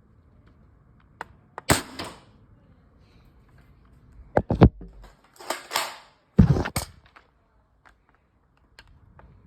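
Nerf Nexus Pro pump-action short-dart blaster being pumped and fired, a handful of sharp plastic clacks and thumps: one about two seconds in, then a quick cluster in the middle.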